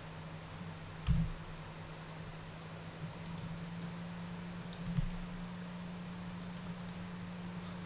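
A few soft computer mouse and keyboard clicks over a steady low electrical hum, with two dull low thumps, about a second in and about five seconds in.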